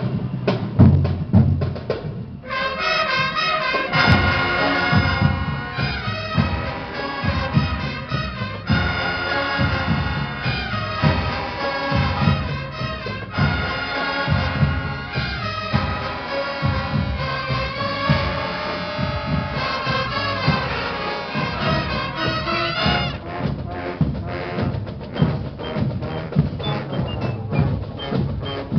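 Marching band playing: drums throughout, with brass joining in on a melody a couple of seconds in and dropping out about six seconds before the end, leaving the drums and a few high bell-like notes.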